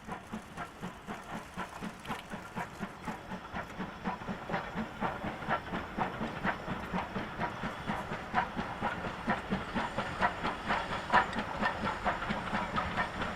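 Steam locomotive working under way, its exhaust chuffing in a steady rhythm of about three beats a second over a hiss of steam.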